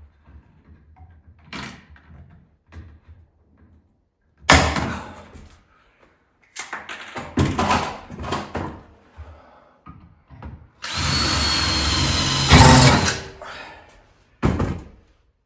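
Power drill running in one steady burst of about two seconds with a thin high whine, among several separate knocks and clunks before and after.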